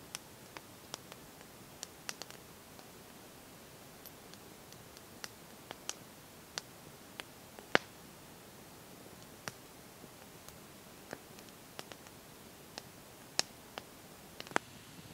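Wood campfire crackling: irregular sharp pops and ticks, one much louder pop near the middle, over a faint steady hiss.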